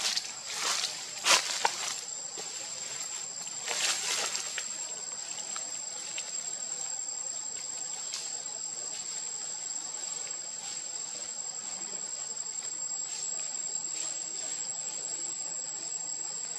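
Insects in the forest trees shrilling steadily: one constant high-pitched whine with a softer band just below it. A few short sharp clicks or rustles in the first two seconds and again about four seconds in.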